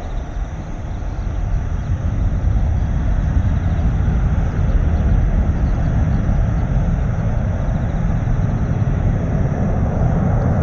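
Jet engine rumble of a Boeing 767-300ER climbing out at takeoff thrust on its two General Electric CF6-80C2 turbofans: a deep, steady roar that swells over the first couple of seconds and then holds.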